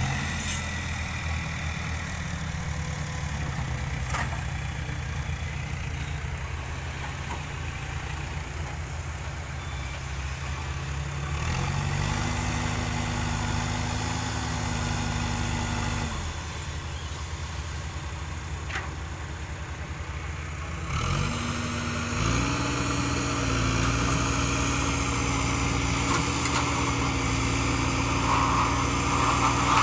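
Diesel engine of heavy earthmoving machinery running, revving up for several seconds, dropping back, then revving up again and holding the higher speed to the end.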